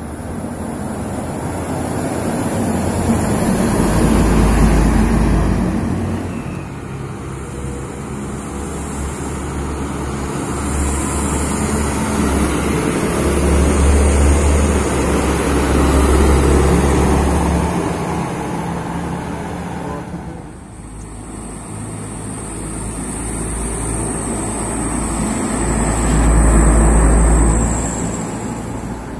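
Trucks passing close by on a road one after another, their engine rumble and tyre noise swelling and fading with each pass. The loudest passes come about four seconds in, around the middle, and near the end.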